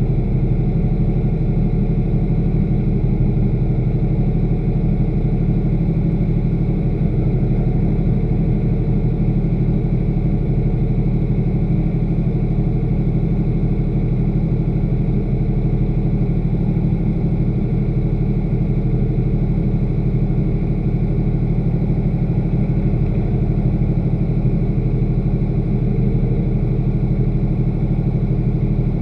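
A race car's engine idling steadily and loudly, heard from a camera mounted inside the car while it sits stationary.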